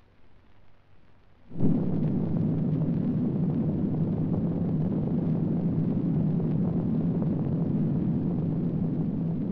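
Film sound effect of a nuclear explosion: a sudden blast about a second and a half in, then a steady low rumble.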